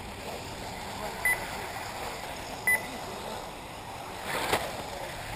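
Two short, high electronic beeps about a second and a half apart, typical of an RC race lap-timing system registering cars crossing the line, over the steady noise of 1/8-scale electric off-road buggies running on the track. A brief rushing burst about four and a half seconds in.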